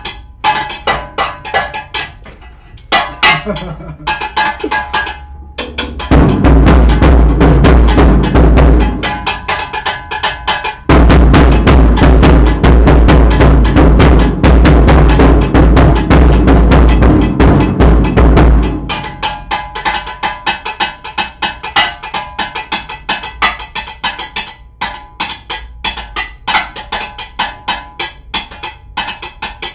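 Drum kit played with sticks: quick strokes on the drums with cymbal hits. About six seconds in it builds into a loud, dense stretch of fast strokes with a heavy low thump. It eases briefly, plays loud and dense again from about eleven to eighteen seconds, then falls back to sparser strokes.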